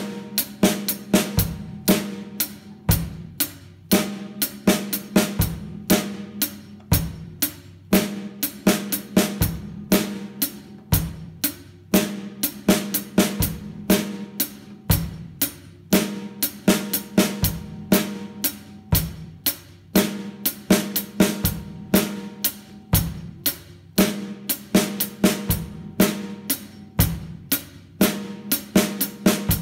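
Drum kit playing a steady, repeating basic beat on hi-hat, snare drum and bass drum together: Sabian XS20 hi-hat, snare and kick drum played in time.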